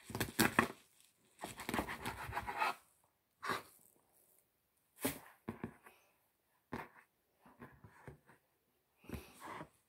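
Fresh kale leaves being torn and handled: irregular crisp tearing and rustling, with a longer stretch of tearing about a second and a half in and shorter tears after.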